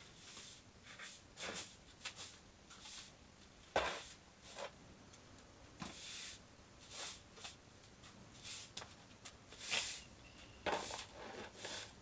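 A person moving about in rubber clogs on a concrete floor: faint scattered scuffs and rustles, roughly one a second, with one sharper knock about four seconds in.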